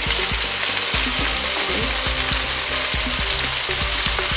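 Chicken breast fillets sizzling steadily as they fry in olive oil and butter in a nonstick pan, with the small taps and scrapes of tongs moving the pieces around.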